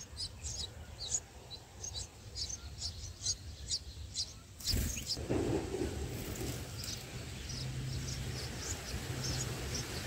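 Red-whiskered bulbul nestlings begging with rapid, high-pitched chirps, several a second at first and sparser later. A sudden rustling burst comes about halfway through.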